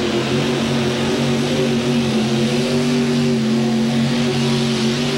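Mini rod pulling tractor's engine running hard under load as it drags the weight-transfer sled, holding a steady pitch.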